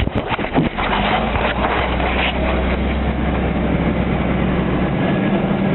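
Heavy military vehicle's engine running steadily with road noise, heard from inside the cab, with a few rattles and knocks in the first second.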